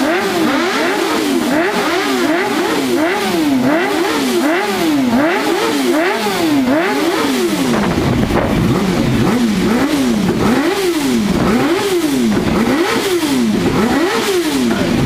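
Several 600–1000cc superbike engines being warmed up on the grid with repeated throttle blips, the revs rising and falling over and over, roughly once or twice a second, with more than one engine overlapping.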